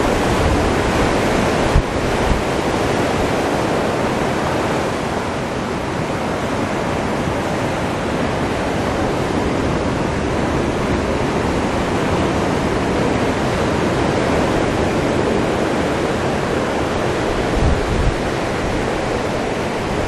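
Wind buffeting an unshielded camera microphone over the steady wash of surf breaking on a sandy beach.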